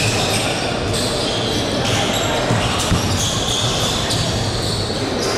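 A basketball bouncing on the hardwood court of a large gym, over players' and spectators' voices in the hall.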